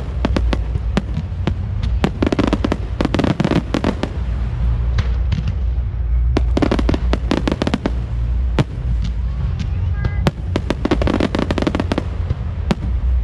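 Fireworks display going off: a rapid run of crackling pops and bangs, many a second, over a steady low rumble.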